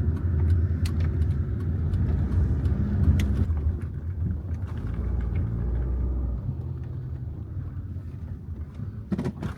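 Low rumble of a road vehicle in motion, with scattered faint clicks, easing off over the last few seconds.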